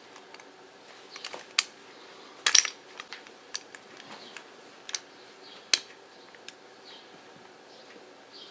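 Hard plastic parts of a Beyblade spinning top clicking and snapping as they are fitted and twisted together by hand: scattered sharp clicks, the loudest about a second and a half, two and a half and nearly six seconds in.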